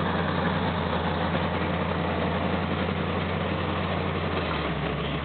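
Classic Ford Bronco's engine running slow and steady at near-idle while the truck crawls over rocks in a rutted trail.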